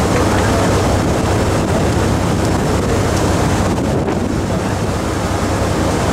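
Steady low engine hum of a boat running, mixed with wind buffeting the microphone and water wash; the high hiss thins briefly about four seconds in.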